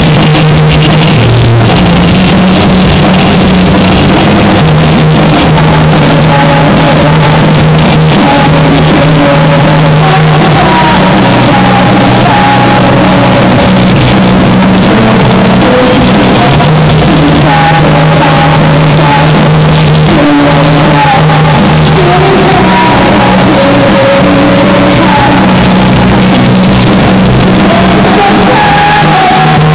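Live rock band playing loudly: electric guitar, drums and keyboard with sustained low notes, and a woman singing, her voice coming in partway through.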